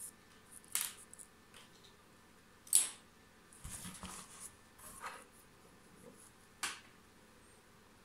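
Handling noise: a series of short rustles and scrapes, the loudest about three seconds in, with a soft low bump around four seconds.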